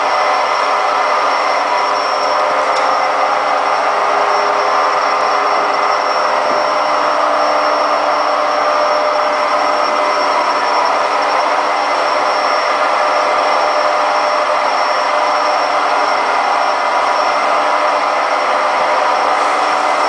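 Hoover Quattro Powerjet AE140 front-loading washing machine spinning at high speed on its fast spin, a loud steady roar with a few constant whining tones. The noise comes from broken drum bearings.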